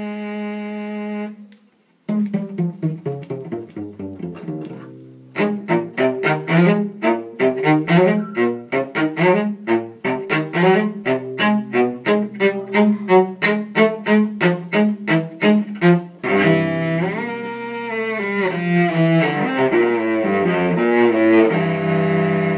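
Solo cello being bowed: a held note that stops about a second and a half in, then after a brief pause a passage of quick, short separated notes, about four a second, changing near the end to longer connected notes that slide between pitches.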